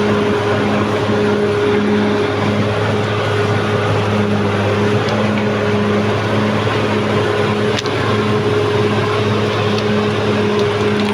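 Caterpillar D6R XL bulldozer's diesel engine running steadily, with a hum that pulses about twice a second over the engine noise.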